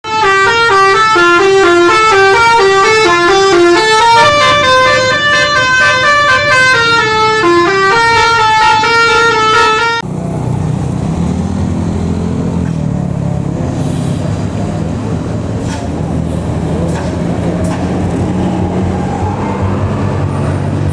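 A bus's multi-tone telolet basuri horn plays a loud stepped melody for about ten seconds. It then cuts off suddenly to a bus engine running steadily, its pitch rising slightly near the end.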